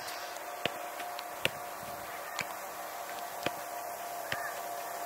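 Footballs being struck during goalkeeper training: five sharp knocks at uneven spacing, roughly one a second, over a steady faint hum.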